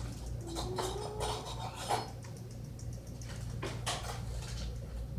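A few clinks and knocks of kitchen utensils against containers, spread over several seconds, over a steady low hum.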